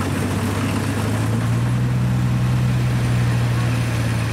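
Kubota DC-70 rice combine harvester's diesel engine running steadily under load while harvesting; its engine note rises slightly about a second and a half in.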